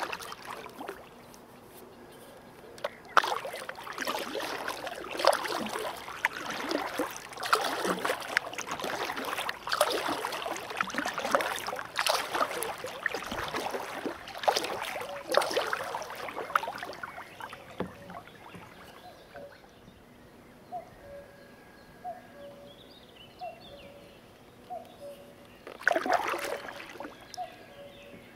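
Kayak paddle strokes splashing and sloshing in lake water, dense and irregular through the first half. After that it goes quieter, with a bird calling short repeated notes about once a second, and another burst of paddle splashing comes near the end.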